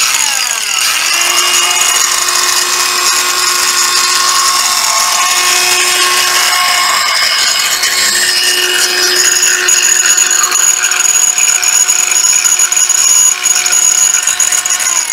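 Hitachi G 14DSL 14.4 V cordless angle grinder running free with no load, a loud, steady high whine that starts abruptly and begins to wind down at the very end. It runs smoothly.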